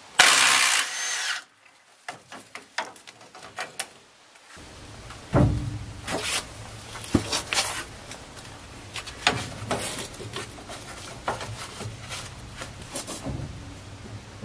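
Cordless drill-driver running briefly, about a second and a half, as it backs out old seized bolts on a locomotive air-brake pipe flange. It is followed by a low hum and scattered clicks and metal knocks of hand work on the fittings.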